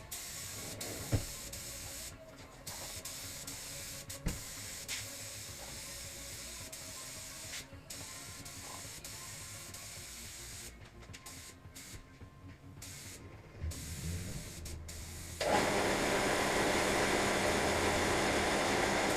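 Compressed-air gun hissing steadily, starting suddenly about fifteen seconds in and cutting off at the end; before it, quiet garage noise with two sharp knocks early on.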